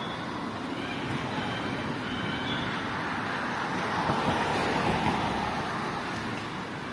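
Street traffic noise, with a vehicle passing close by that swells to its loudest about four to five seconds in and then fades.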